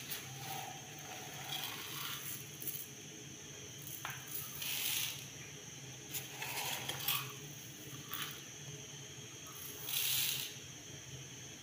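Dry rice being scooped by hand from a plastic bag with a small tin cup and poured into a plastic bowl: crinkling of the bag and several short hissing pours of grains, the loudest about ten seconds in.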